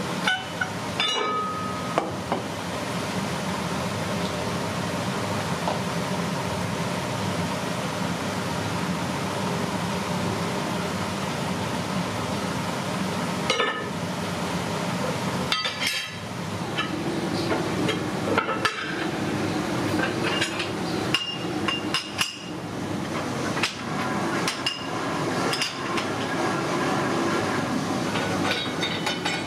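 Steel mould plates of a hand-screw gasket press clinking and knocking against each other and the bench as they are handled, over a steady background hum. The clinks come scattered, a few near the start and more often in the second half, some ringing briefly.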